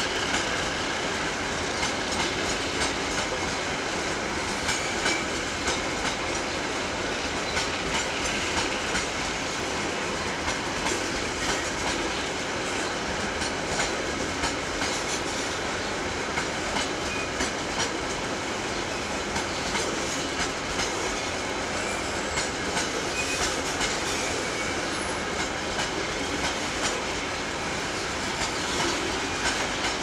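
Long train of loaded coal wagons rolling past, its wheels clicking over the rail joints again and again through a steady rolling rumble.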